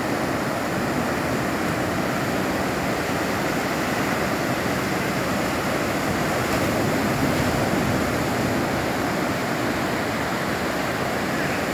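Ocean surf breaking on a beach: a steady, even wash of waves.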